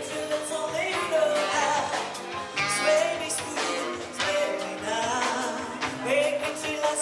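A rock-and-roll song: a singing voice over guitar and drums with a steady beat.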